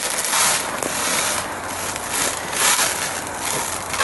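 Plastic stretch wrap being pulled off the roll and wound around the hammock frame, crackling and hissing in repeated pulls about once a second.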